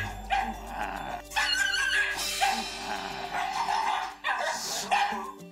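Shiba Inu barking in several short bursts at another dog shut in a pet carrier, a reactive bark set off by a kissing sound, over a steady music bed.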